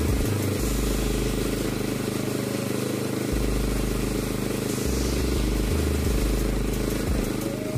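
Gravity-feed air spray gun hissing steadily as it sprays paint onto a motorcycle panel, over the steady hum of an air compressor running.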